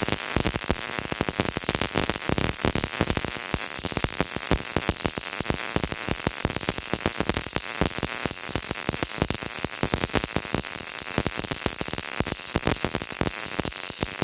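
MIG welding arc from a PrimeWeld MIG 180 running one continuous bead on 20 gauge mild steel: a steady, dense, rapid crackle.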